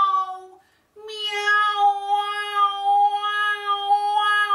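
A woman's singing voice in a cat-imitation vocal warm-up. A first tone fades out just after the start. About a second in she begins a long note and holds it at one steady pitch, with the vowel shifting slightly.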